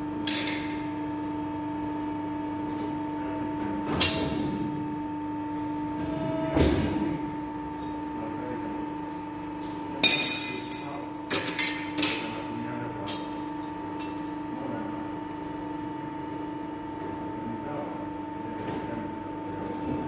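Hydraulic press brake running with a steady hum, broken now and then by sharp knocks and clanks as sheet steel is handled and bent in it, with a cluster of them about ten to twelve seconds in and a low thud a little before.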